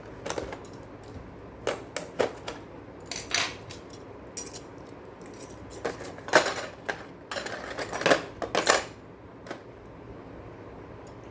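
Small metal construction-kit parts, nuts, bolts and strips, clinking and rattling as they are handled and set down: irregular clicks, a few with a short metallic ring.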